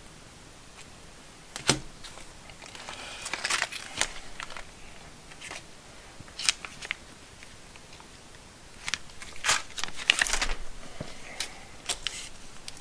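Small plastic packs of nuts and bolts being handled and set down: scattered sharp clicks and taps with crinkling of the packaging.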